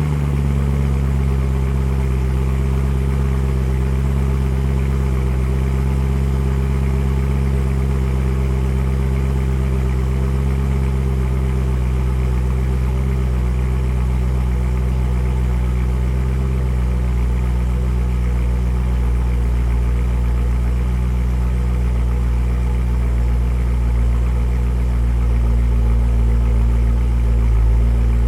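BMW E92 M3's 4.0-litre V8 idling steadily after a cold start, heard through a Borla ATAK exhaust fitted with venturis. A deep, even exhaust drone that grows a little louder near the end.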